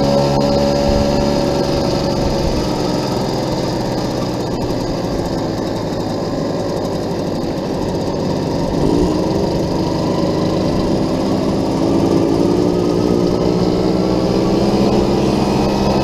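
Vintage 50cc two-stroke moped engine running under way, its note sinking about halfway through and then climbing again as it revs back up.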